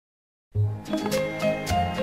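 Instrumental opening music starting suddenly about half a second in, with held bass notes under a melody and a regular beat.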